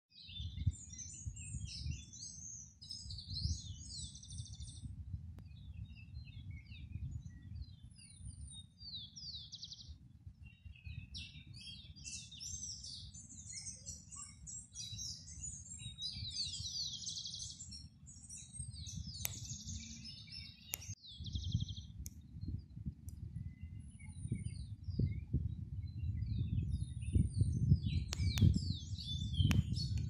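Many small birds chirping and twittering in short high calls, over a low rumble of wind on the microphone that turns gustier near the end.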